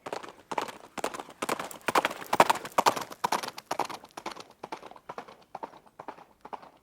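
A running horse's hoofbeats: a rapid, rhythmic clatter of hoof strikes that grows louder to a peak about two and a half seconds in, then fades as the horse moves away.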